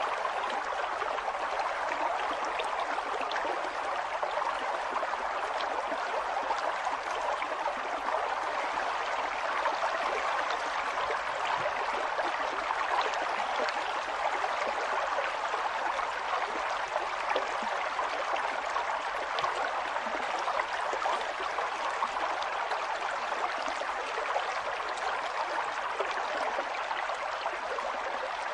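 A river stream flowing steadily over rocks, an even rush of water with small splashes and gurgles throughout.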